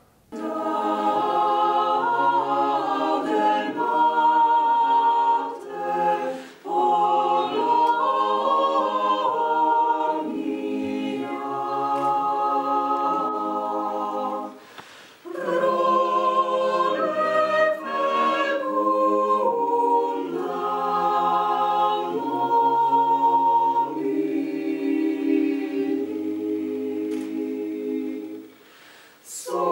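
Mixed choir of men's and women's voices singing a cappella in sustained chords, with short pauses between phrases; near the end one phrase dies away and the next begins.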